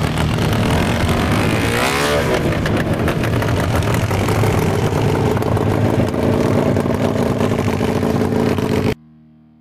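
Engine of a homemade lawn-tractor snow vehicle running hard and revving, with a rise and fall in pitch about two seconds in as it drives by. The sound cuts off abruptly near the end.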